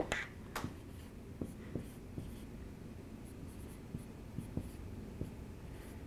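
Marker writing on a whiteboard: faint scratching with a scattering of light taps as letters are formed.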